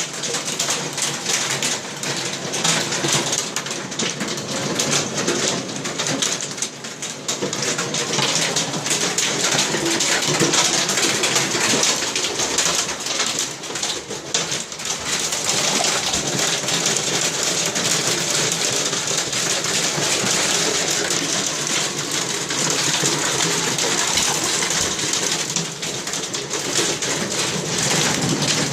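Heavy rain from a thunderstorm pouring down, a steady hiss with many small drop impacts.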